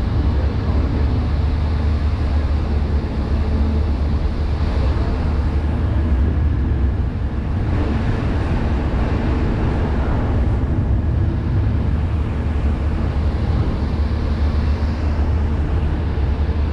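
A vessel's engines running with a steady low drone, heard on the open deck with a broad rushing noise over it.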